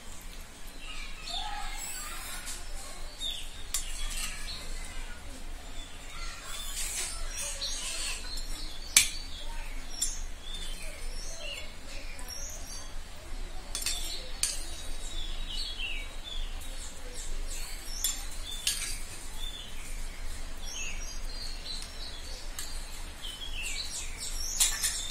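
Metal spoon clinking and scraping in a small steel bowl of yogurt, with one sharp clink about nine seconds in and another near the end. Birds chirp in short, quick falling notes in the background throughout.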